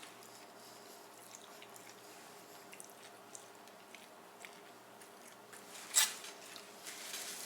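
A person chewing a mouthful of Pad Thai noodles, close to the microphone, with scattered small clicks and one sharp, loud click about six seconds in.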